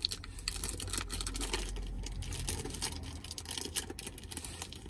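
Packaging being torn open by hand: a quick run of crinkling, scratching and ripping that eases off near the end.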